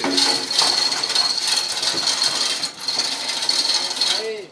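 Metal chain of a 2-ton manual chain block rattling and clinking without a break as it is hauled hand over hand, dying away near the end.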